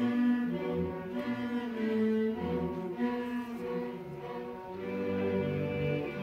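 Middle school string orchestra of violins, cellos and double bass playing, held bowed chords that change about every second, with low bass notes underneath in places.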